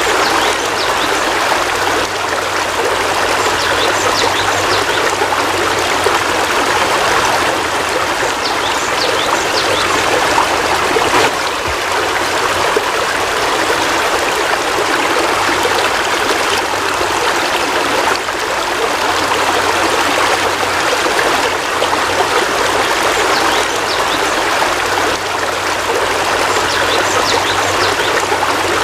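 Steady heavy rain, an even hiss with scattered small drips and ticks throughout.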